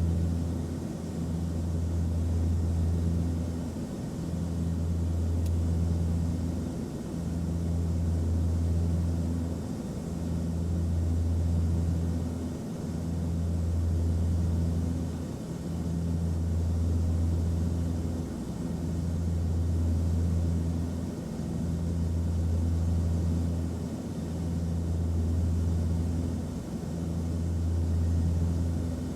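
Airplane cabin noise: a steady engine and airflow drone with an even hiss over it. A low hum in the drone swells and fades about every two and a half to three seconds.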